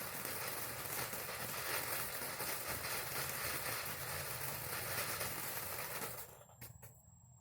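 TNT Freedom 76 tube fountain firework spraying sparks with a steady hiss that fades and dies away about six seconds in as the fountain burns out.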